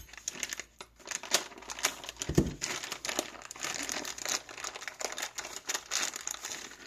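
Packaging crinkling and rustling as small parts are unwrapped and handled, with irregular crackles throughout and one low thump about two and a half seconds in.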